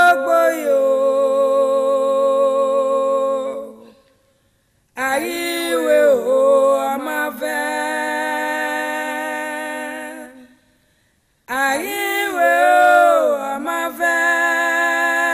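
Women singing unaccompanied in Edo: three long phrases of held notes with vibrato, each fading out, broken by short silences about four seconds in and about ten and a half seconds in.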